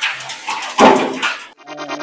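Creaks and knocks from a car-body rotisserie being cranked round, with one loud thump a little under a second in. Electronic music with a steady beat starts near the end.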